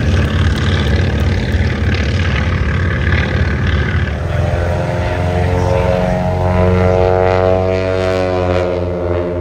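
Grumman HU-16 Albatross amphibian's twin radial piston engines and propellers running at takeoff power as it runs along the water, lifts off and climbs past: a loud, steady propeller drone whose engine note rises and then falls in pitch in the second half as it passes.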